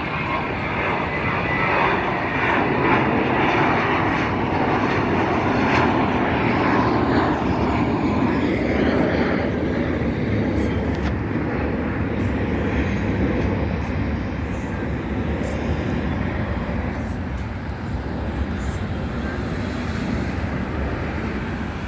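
Jet airliner's engines, a loud steady rumble that is strongest in the first several seconds and then slowly fades as the aircraft moves away.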